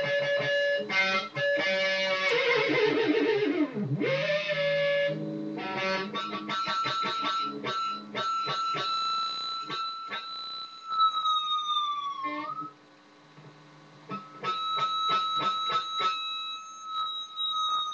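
Electric guitar played for sound effects: held notes with a deep pitch dive that swoops back up about four seconds in, runs of quick picked notes, and high sustained notes that bend downward about twelve seconds in and again near the end.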